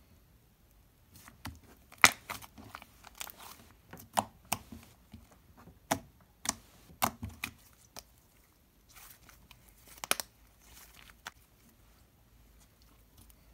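Soft, sticky butter slime made from slime mixed with Play-Doh, pressed and stretched by hand on a wooden board. It gives scattered sticky pops and clicks at irregular moments, thinning out near the end.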